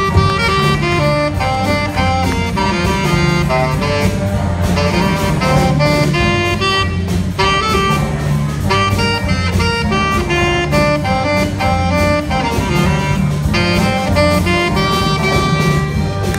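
Student jazz big band playing a swing tune: a saxophone solo over the band's sax section and drum kit, with a trumpet taking over near the end.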